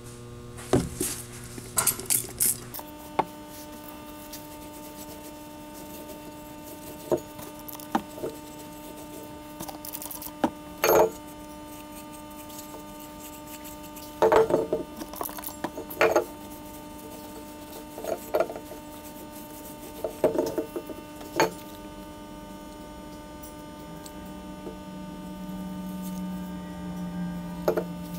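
Scattered clinks and knocks of a steel double-bit axe head being handled, turned over and set down on a wooden workbench while it is oiled and wiped with a rag, about a dozen in all, over a steady electrical hum.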